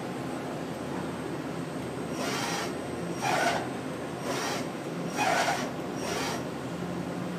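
Hitachi Seiki HT-25D CNC lathe running with a steady hum. About two seconds in, five short hisses come roughly a second apart.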